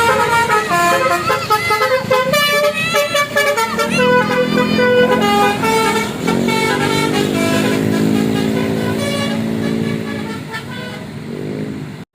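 Basuri telolet multi-tone horn on a tour bus playing a fast jingle of stepping notes, then holding a lower steady tone for several seconds that fades out near the end.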